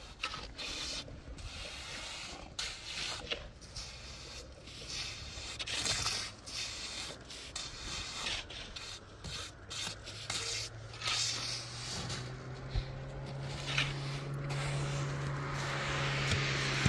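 Hand trowel scraping and smoothing wet concrete on a roof slab in short, irregular strokes. In the second half a low engine hum comes in and grows steadily louder.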